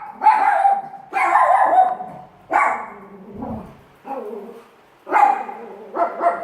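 Pet dog barking repeatedly, about six barks with short gaps between them, some of them drawn out.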